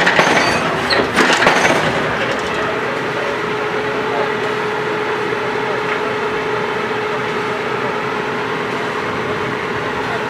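Borewell drilling rig machinery running, with a few loud knocks in the first two seconds. It then settles into a steady mechanical drone with a constant pitch.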